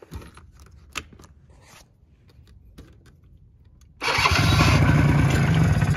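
Polaris Sportsman 90's two-stroke engine being started: after a few faint handling clicks, a loud start attempt begins suddenly about four seconds in, runs for about two seconds and cuts off.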